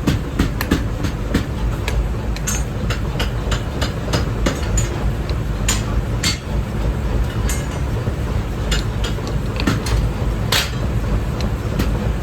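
Hammer blows on steel during forging, a quick irregular run of strikes at first, then sparser single blows, over a steady low rumble.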